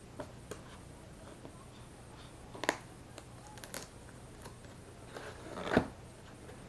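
Handling noises from opening the drone's packaging: scattered sharp clicks and light knocks, the loudest near the end.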